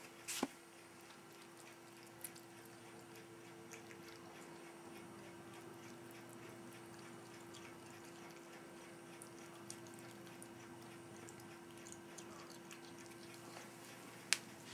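A cat eating dry food from a bowl: faint, scattered crunches over a steady hum, with a sharp click near the start and another near the end.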